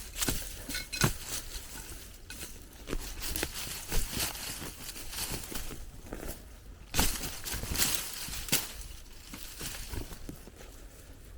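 Digging into soil and leaf litter to recover a detected target: irregular scraping and crunching of dirt, with a few sharper hits of the digging tool, about a second in, around four seconds, and several between seven and eight and a half seconds.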